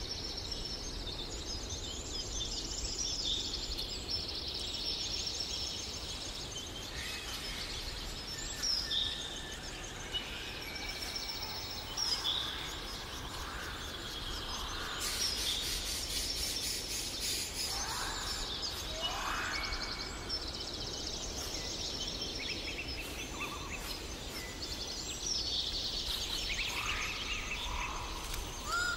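Several birds chirping and singing, with quick trills and short whistled calls overlapping throughout.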